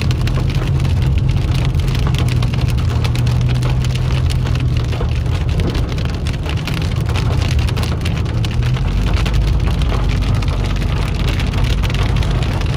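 Heavy rain pelting a car's roof and windshield, heard from inside the cabin as a dense crackle of drops over the low steady drone of the car driving on a wet road.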